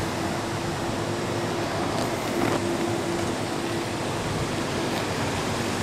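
Steady rolling noise of skate wheels on a paved path, with a faint steady hum and a couple of light clicks about two seconds in.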